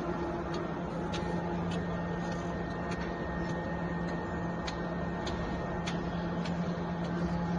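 Automatic wonton wrapper making machine running: a steady motor hum with a sharp click about every half second from its pressing and cutting mechanism.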